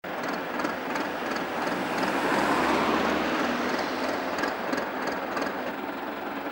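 Huddig backhoe loader's diesel engine running steadily, with a light clicking about three times a second and a louder spell about two seconds in.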